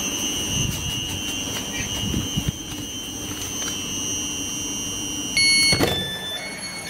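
Thameslink electric multiple unit standing at the platform: a steady high-pitched two-tone whine, then a loud door-closing warning beep about five seconds in. A knock follows as the sliding doors shut, then a few short tones at other pitches.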